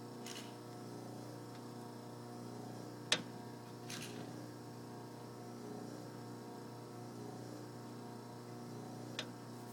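Slayer espresso machine's pump humming steadily during pre-infusion, before the shot begins to flow, with two sharp clicks, one about three seconds in and one near the end.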